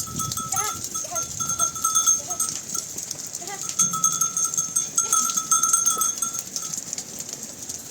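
Livestock sounds with a high ringing tone that comes and goes, and short animal calls now and then.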